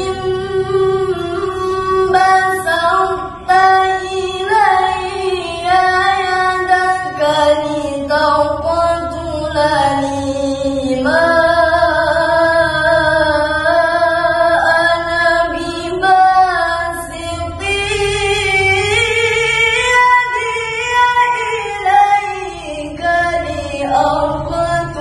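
A young woman's solo, unaccompanied Quran recitation (tilawah) in the melodic qari style, with long held notes that glide and turn in ornaments. A steady low rumble sits underneath.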